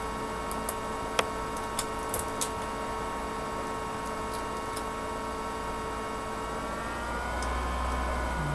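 Steady electrical hum of several fixed tones, with a few light, sharp clicks in the first couple of seconds from handling the tape and plastic shielding on a laptop screen connector. Near the end the hum shifts slightly and its low part grows stronger.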